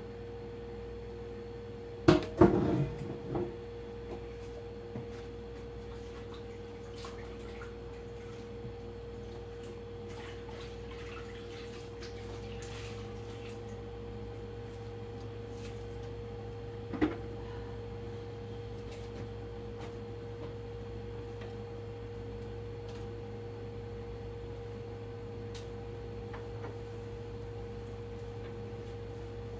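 Kitchen items being handled and set down: a quick cluster of clanks and knocks about two seconds in and a single knock later on, over a steady hum.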